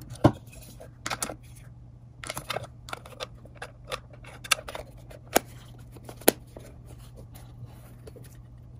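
Small metal clicks and scrapes from handling a Leica IIIc rangefinder camera as film is loaded, its base plate is fitted back on and its locking key is turned. The clicks come singly and irregularly, a few of them sharper than the rest.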